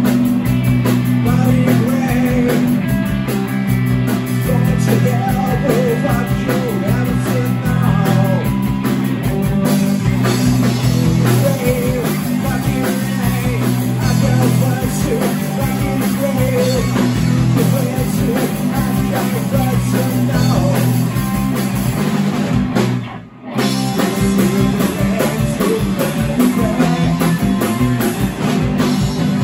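Live rock band playing loud: electric guitars, bass and drum kit, with a singer's vocals over them. The sound drops out for a split second about three-quarters of the way through, then comes straight back.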